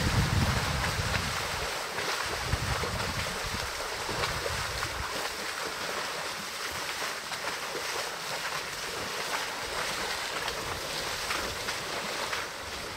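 Water splashing and sloshing as African elephants wade through a shallow river, over a steady rush of water. Wind rumbles on the microphone for the first two seconds or so.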